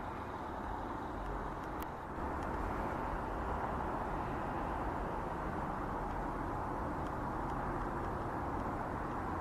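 Steady outdoor background noise: a distant traffic hum, a little louder from about two seconds in.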